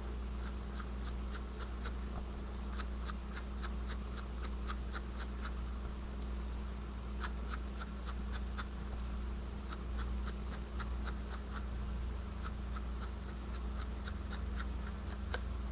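Ink sponge dabbing onto the edges of card stock: quick light taps, a few a second, in runs with short pauses between, over a steady low hum.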